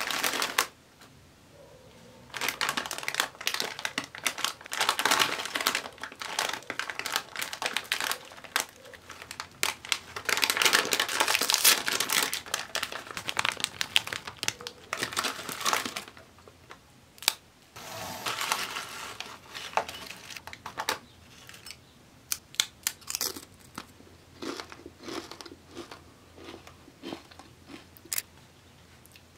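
Crinkling and tearing of a plastic Doritos chip bag being handled and opened, dense and crackly for much of the first half. After that, tortilla chips rustle and click in separate little bursts as they are handled.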